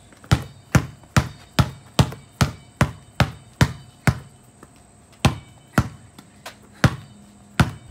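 Basketball dribbled hard on concrete: about ten sharp bounces at a steady two to three a second, a short pause a little after four seconds in, then the bouncing resumes at a less even pace.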